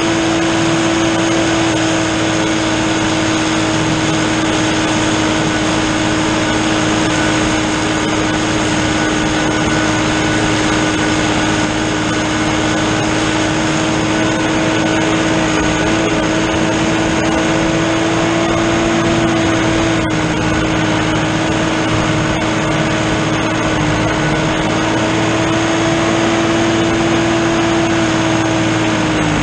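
New Holland TN70 tractor's diesel engine running steadily under load while driving a drum mower through standing hay, with a steady whine over the engine noise.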